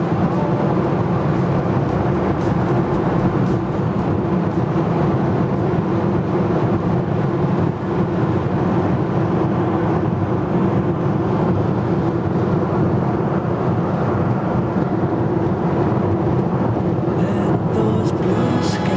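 Steady road and engine noise inside a car cruising at highway speed, a constant low drone with tyre rumble.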